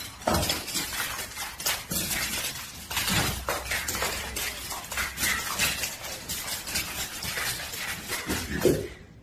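A dog and a cat scuffling on a hard marble floor: a busy run of scrabbling, clicking and clattering, with a short animal call near the end.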